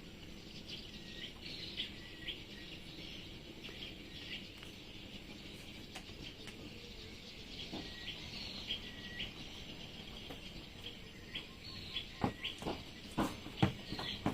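Small birds chirping repeatedly in short, hooked calls. A few sharp knocks in the last couple of seconds, like tools or parts being handled.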